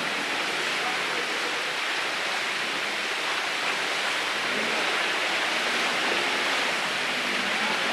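Floodwater of a swollen creek rushing steadily through whitewater.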